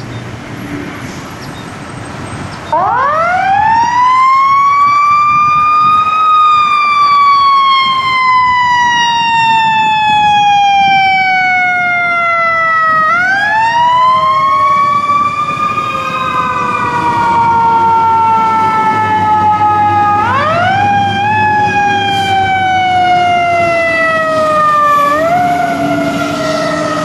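Mechanical emergency-vehicle siren starting up about three seconds in: its pitch rises quickly, then falls slowly for several seconds. It is wound back up three more times, each rise followed by a long slow fall.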